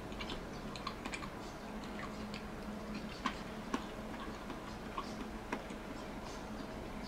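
Scattered light clicks and taps at an uneven pace from tableware being handled at a meal, the two sharpest a little over three seconds in, over a faint steady hum.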